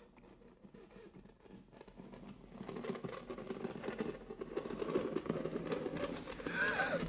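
Claws scratching and dragging down a surface, a dense crackly scratching that starts near silence and grows steadily louder, with a short squeak near the end.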